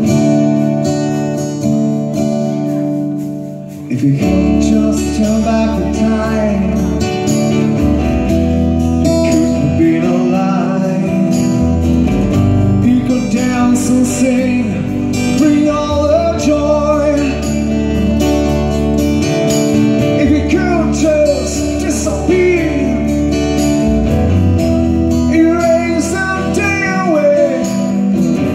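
Rock band playing live in an acoustic arrangement, starting with acoustic guitars strumming. About four seconds in, after a brief dip, the bass and the rest of the band come in under a wavering melody line.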